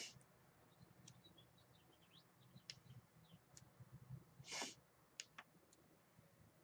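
Near silence: faint room tone with a short soft hiss at the start and another about four and a half seconds in, and a few faint high chirps and light ticks between them.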